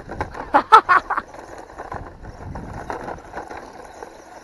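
GPTOYS S926 1:12 scale 4WD RC truck driving over dirt and stones: a handful of sharp clatters in the first second or so, then a faint steady run of motor and tyre noise.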